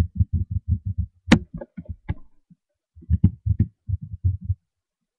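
Quick low thumps, about seven a second, in runs broken by short pauses, with a sharp click a little over a second in: a Sharpie marker scribbled back and forth to fill in a thick black line on a small card, knocking against the surface beneath it.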